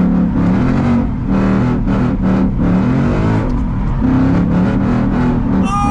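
Ford Mustang GT's V8 engine revving hard while the car drifts, its pitch climbing and dropping again and again as the throttle is worked.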